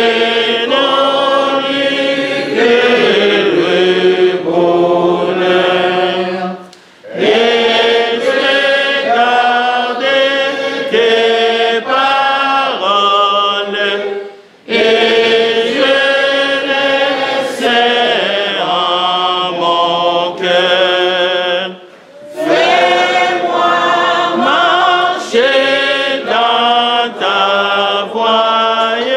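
Unaccompanied hymn singing, with held notes sung in phrases of about seven seconds and a short breath between phrases.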